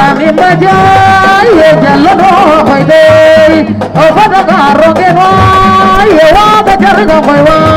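A woman singing a cappella through a microphone, holding long notes and winding ornaments between them.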